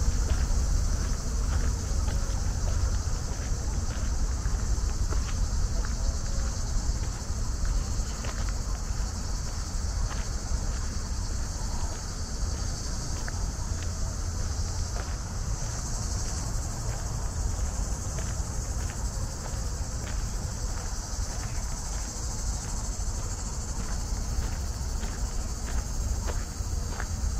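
Insects chirring steadily in the park's trees as one continuous high-pitched drone. Under it are a low rumble and faint, irregular ticks of footsteps on a dirt path.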